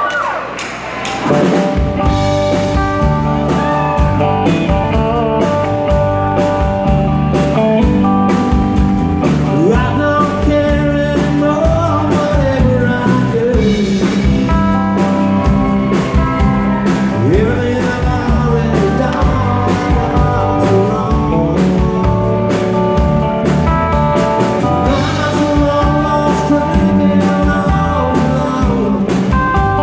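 Live rock band playing, electric guitars, bass and drums starting up about a second in and running steadily, with a man singing over them.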